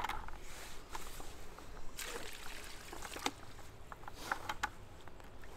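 Faint trickling water with a few small splashes and light clicks at the water's edge.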